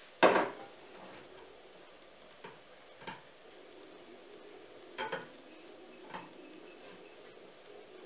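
A glass mixing bowl knocking on a kitchen countertop: one sharp clunk just after the start, then a few lighter knocks and taps as the bowl is tipped and the dough turned out of it.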